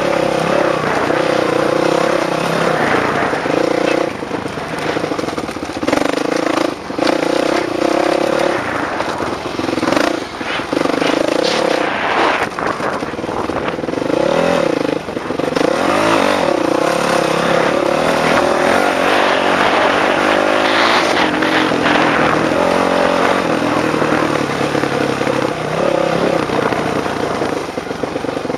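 Dirt bike engine, heard from on the bike, revving up and dropping back over and over as the rider works the throttle and shifts through the gears, with brief dips where the throttle is rolled off.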